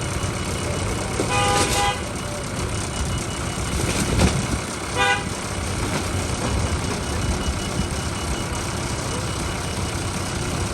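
A vehicle horn toots twice over steady vehicle engine noise: a longer toot about a second and a half in, and a short one about five seconds in. There is a dull thump about four seconds in.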